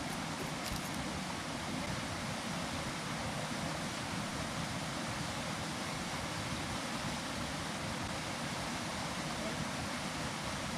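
Steady rushing of a waterfall, an even noise that holds at one level throughout.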